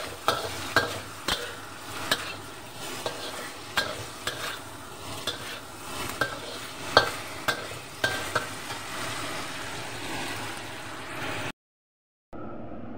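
Spatula scraping and clacking against a wok while chicken wings are stir-fried in a thick sauce, over a steady sizzle. About eleven and a half seconds in the sound cuts off for a moment, then a quieter steady hiss follows.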